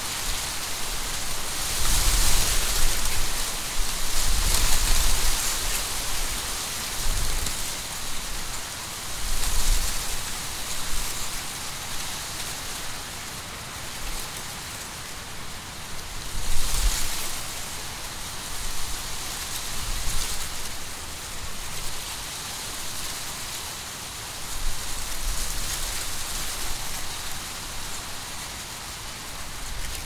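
Wind rustling the dry leaves and stalks of a standing, dried-down corn field, a steady hiss that swells and fades in gusts every few seconds, with a low rumble in the stronger gusts.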